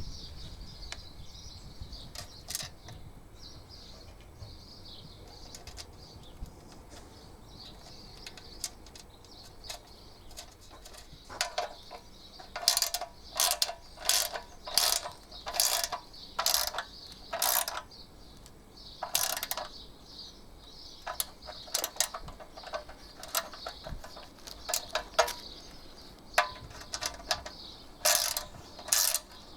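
Ratchet wrench clicking in short back-and-forth strokes as the bracket bolts are done up, starting a little before halfway through and going on in bursts with short pauses.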